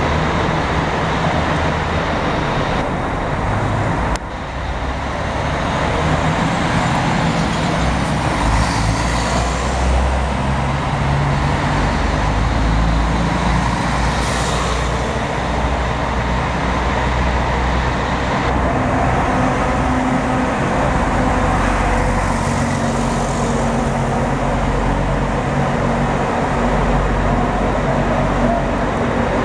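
Diesel engine of a CMA Flecha Azul coach running steadily as the bus pulls slowly into the terminal, with a few short hisses. A click and brief dip in level come about four seconds in.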